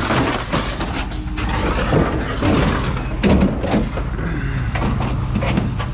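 Scrap Subaru car parts, including steel car doors, being thrown off a truck onto a scrap pile: repeated metal clanks and bangs, over a steady low hum.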